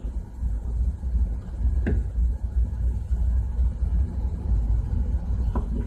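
Steady low rumble of shipboard machinery running in the background, with two faint light clicks, one about two seconds in and one near the end.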